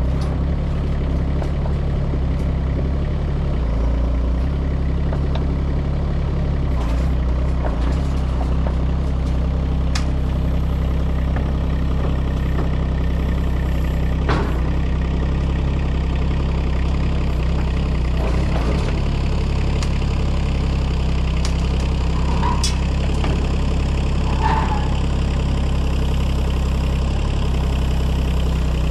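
Heavy equipment diesel engines idling steadily, with a few faint clicks and two short squeaks near the end.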